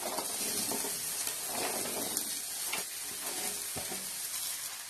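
Sliced bitter gourd sizzling in a hot kadai: a steady hiss with a few light clicks.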